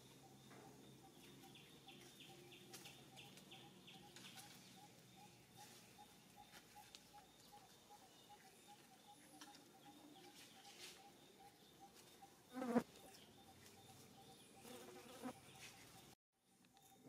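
Near silence with faint, steady insect buzzing that pulses quickly. About two-thirds of the way through there is one short, louder sound.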